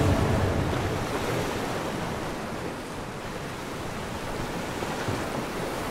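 Ocean surf breaking on the shore below, with wind rushing over the microphone: a steady, even wash of noise with gusty low rumbling.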